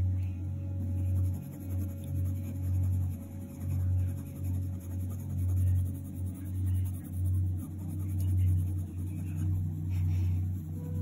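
Coloured pencil shading on hot-pressed watercolour paper in small circular strokes under light pressure. It is a soft, continuous rubbing that swells and fades about once a second.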